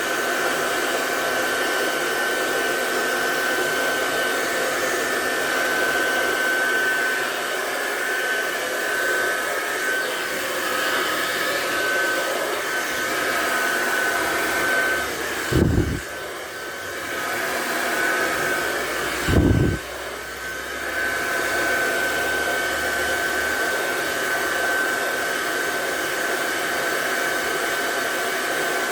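Handheld hair dryer running steadily, blowing air with a high whine on top of its rush. Around the middle there are two brief low thumps, each under half a second.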